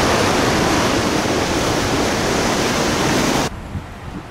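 Ocean surf breaking against a rock jetty: a loud, steady rush of water that cuts off suddenly near the end.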